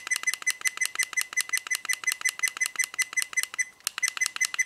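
Toguard CE65 dashcam's key beep: a short high beep repeating about five times a second as its skip button steps through recorded videos in playback, with a brief break near the end.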